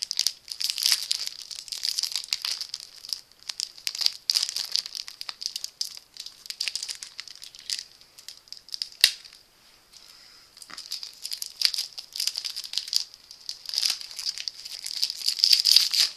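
Foil wrapper of a Pokémon trading-card booster pack being crinkled and torn open by hand: a long stretch of dense, uneven crackling, with one sharp snap about nine seconds in and a short lull just after it.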